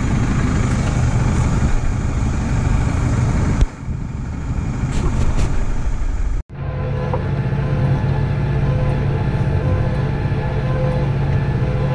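Tractor engine running, heard close up outside beside a muck spreader, with a rough, noisy sound. After sudden cuts about a third and halfway in, it becomes a steadier engine drone heard from inside the tractor cab.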